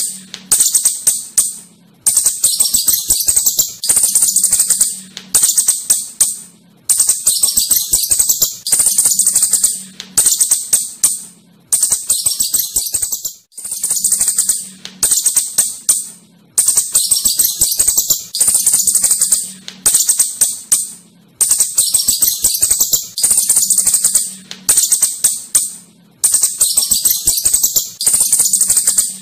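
Asian house shrew (clurut) chittering: bouts of rapid, high-pitched clicking chirps about a second long, repeating about every one and a half seconds.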